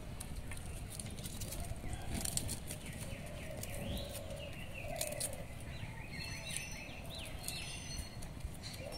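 Birds chirping and calling in the background, in short rising and falling phrases, with faint small clicks and scrapes of a curved bonti blade peeling garlic cloves.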